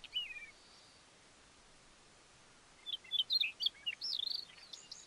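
A songbird singing: a short falling chirp phrase at the start, then a longer run of quick, varied high chirps and whistles about three seconds in, over a faint steady hiss.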